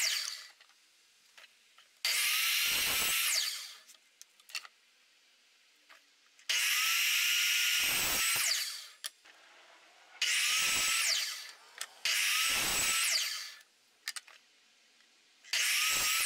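Electric chop saw (miter saw) making repeated crosscuts through wooden boards: five short runs, each starting sharply as the motor whines up to speed, cutting for a second or two, then winding down. The tail of one cut fades out at the very start.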